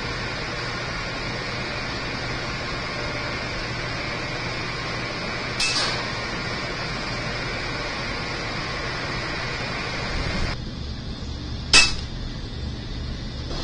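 Two sharp shots from a .25 calibre air rifle, about six seconds apart; the second is louder and followed by a brief ringing. Steady background noise underneath.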